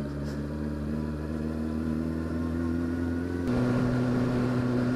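Triumph Speed Four motorcycle's inline-four engine running on the road, its note rising slowly; about three and a half seconds in the note changes abruptly and gets a little louder. The engine is hot and running unhappily, a fault the owner puts down to a loose electrical connection.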